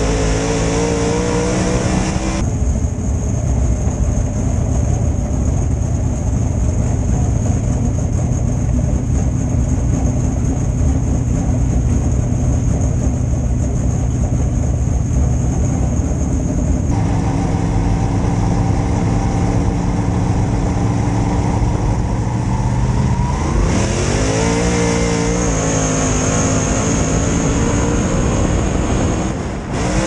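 Dirt late model race car's V8 engine running, heard from inside the cockpit. It holds a steady pitch for long stretches, changes abruptly twice, and about three quarters of the way through rises in pitch as the car accelerates, then levels off.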